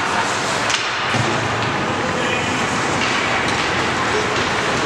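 Steady noise of ice hockey play: skate blades scraping and carving on the rink ice, with a couple of sharp knocks of stick or puck.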